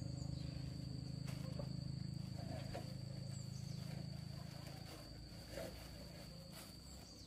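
A low droning hum with a steady pitch that slowly fades away, under a constant high-pitched insect drone, with a few faint clicks.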